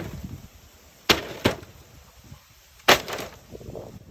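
Cement blocks dropped onto an Element flat-screen TV with its LCD panel removed, striking it with sharp knocks. There is one hit about a second in, another half a second later and a third near three seconds, each followed by a short clatter.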